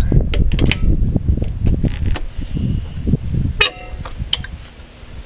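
Metal socket and bar clicking and clinking on a trailer wheel's lug nut as it is snugged up, with a sharp ringing clink about three and a half seconds in. Under it, a low rumble fades out at about the same point.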